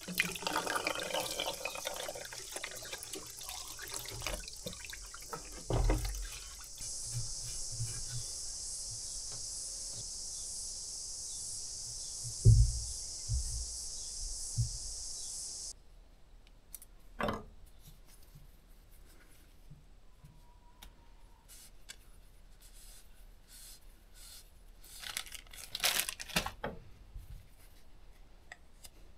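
A steady hiss of liquid washing the freshly honed cast hydraulic lift cylinder housing, with a sharp knock partway through, stopping suddenly about halfway. Then scattered light clicks and knocks of small metal parts handled on a workbench.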